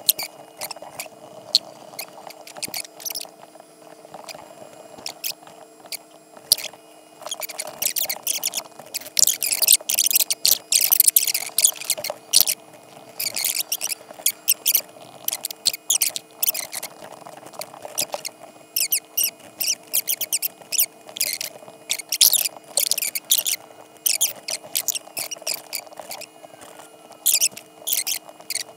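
Stylus nib scratching across a drawing tablet in quick short strokes that come in dense bunches with pauses between them, over a steady low hum.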